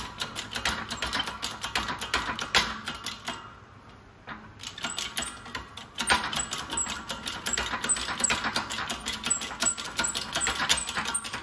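Shop press being worked to bring its ram down onto an RX8 wheel hub's stud, a fast run of mechanical clicks. The clicking pauses for about a second roughly four seconds in, then starts again.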